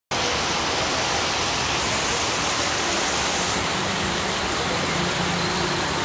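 Heavy tropical rain pouring steadily, a dense, even hiss with no letup.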